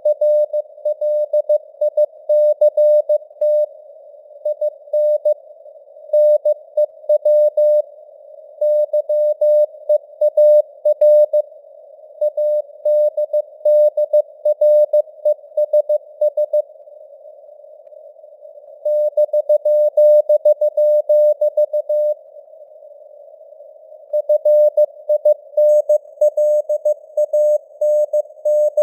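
Morse code (CW) sent at 15 words per minute as a single steady mid-pitched tone keyed on and off in dots and dashes, over a narrow band of hiss that is simulated radio noise. Twice, a couple of seconds pass where only the hiss is heard between bursts of code.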